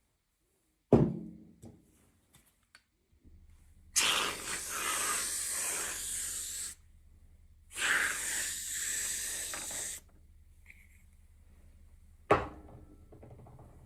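Hands handling toys and packaging: a sharp knock about a second in, then two long hissing, rustling passes of two to three seconds each, and another knock near the end.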